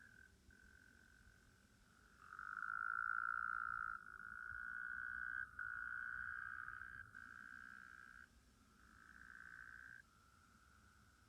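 Frogs calling in a chorus: long, even trills at one high pitch, several callers overlapping, loudest from about two to eight seconds in.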